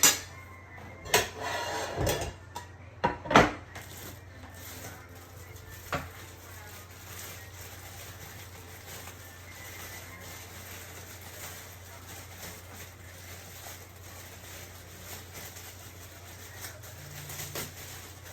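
Dishes and cutlery clinking and clattering several times in the first few seconds, once more about six seconds in, then only a steady low hum.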